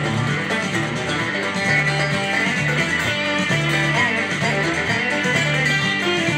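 Electric guitar solo on a mid-1960s Gibson Firebird VII, a run of single-note lead lines in a country-rock shuffle, over a backing track with a steady bass line.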